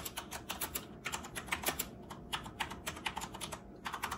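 Fast typing on a Corsair computer keyboard: a rapid, uneven run of key clicks, with a short pause just before the end.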